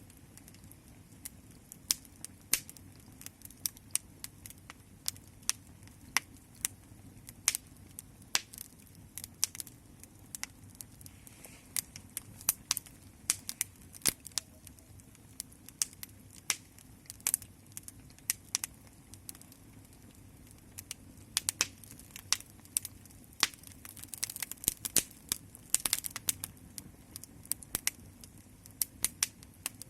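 Fire crackling: irregular sharp pops and snaps over a faint low rumble of the flames, coming thicker and louder about three-quarters of the way through.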